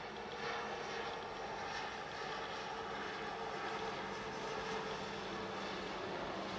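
Boeing C-17 Globemaster III's four turbofan engines running as the transport flies low overhead: a steady jet drone with a low hum through it.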